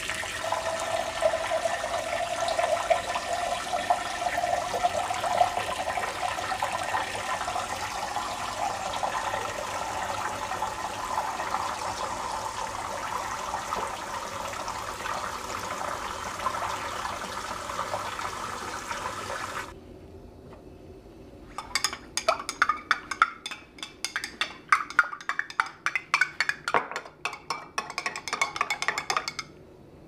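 Water running from a tap into a container for about twenty seconds, the pitch creeping slowly upward as it fills, which is fresh water being drawn for cut flowers. It stops abruptly, and after a short lull comes a quick run of sharp clicks and knocks.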